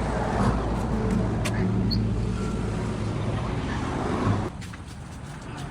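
Chainsaw engine running at a steady high speed, then dropping off suddenly about four and a half seconds in.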